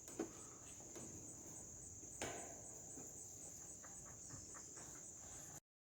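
Insects chirping steadily in a high, even, faintly pulsing trill, with a faint knock about two seconds in and the sound cutting out briefly near the end.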